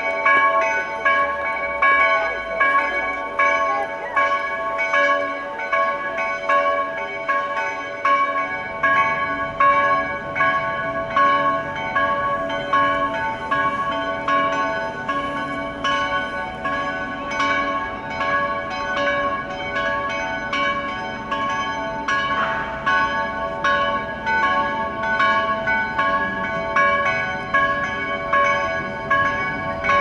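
Church bells of St. Clara's ringing a full peal: several bells struck over and over, their strokes overlapping several times a second while their tones ring on between strokes.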